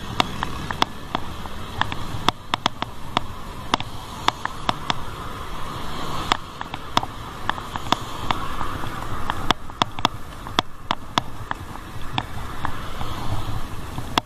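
Riding noise from a bicycle on the road: wind and tyre rumble with many irregular sharp clicks and rattles throughout.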